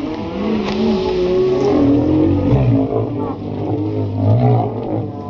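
A roped bull bellowing as it bucks, a loud call whose pitch wavers and bends.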